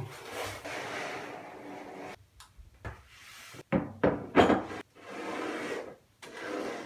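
Packing paper and a cardboard box rustling as the box is unpacked, then several sharp knocks and thumps about halfway through as a metal tin is lifted out and set on the table, followed by more rustling.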